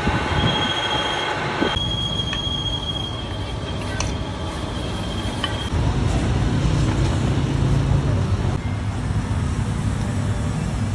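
Machine-shop machinery running: a metal lathe spinning a small steel part while it is worked by hand, then, after an abrupt change about two seconds in, a steady low motor hum from a milling machine.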